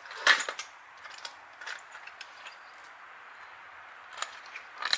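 Small metal hardware, steel T-nuts and bolts, clinking and jingling as it is handled. One sharp ringing clink comes about a third of a second in, followed by scattered lighter clicks.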